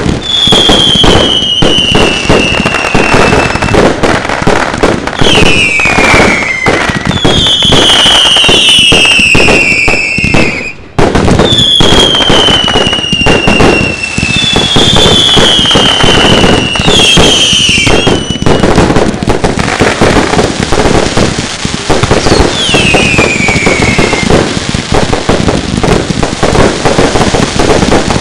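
Firework display barrage: dense, continuous bangs and crackling from firework cakes, with several whistles that each slide down in pitch over a second or two. The barrage breaks off briefly about eleven seconds in, then carries on.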